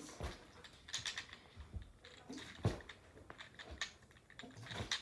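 Scattered light taps, clicks and fabric rustling from things being handled and set down on a couch, with a sharper knock about two and a half seconds in.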